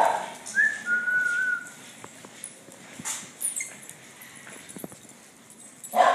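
Small dogs barking and whining: a bark right at the start, then a thin high whine of about a second, a quieter stretch with a few faint ticks, and another bark at the end.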